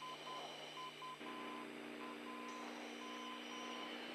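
Short electronic beeps at one pitch, unevenly spaced, from the F-15C Eagle's cockpit audio over a steady low hum; a second steady low drone joins about a second in.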